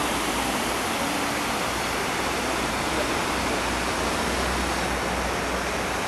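Waterfalls: a steady, even rush of water spilling over mossy rock ledges.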